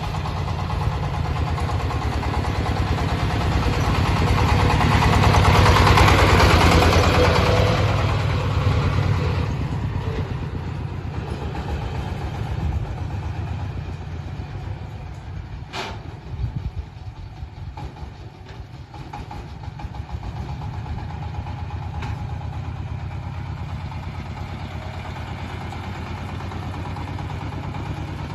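20 hp diesel engine of a boat tractor running, swelling louder with a rush of noise over the first third, then settling to a steady run. A single sharp click is heard about halfway through.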